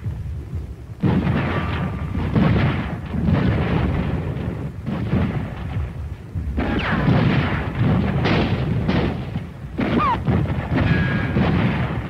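Battle sounds of artillery and gunfire: a run of heavy booms and shots, one every second or two, starting about a second in. Short falling whistles come between them twice.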